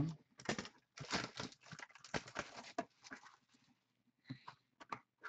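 Hands opening a box of trading cards, tearing and crinkling its wrapping: a fast run of rustles and crackles that lulls briefly about four seconds in.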